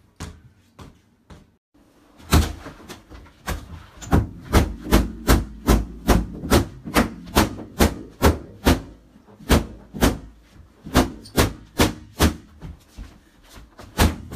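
A small stick beaten down again and again on a large inflatable toy and the hard floor under it: a run of sharp whacks, about two a second, starting about two seconds in.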